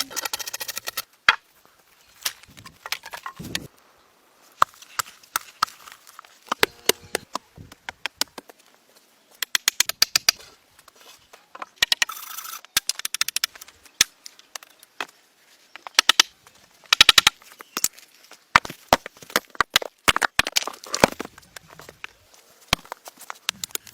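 Sharp knocks and quick runs of clicks from hand tools working wood, coming in irregular bursts.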